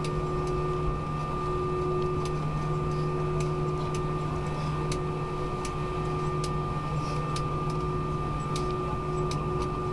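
Steady drone inside an airliner cabin, engine and air-conditioning noise with a few constant hum tones and scattered small clicks.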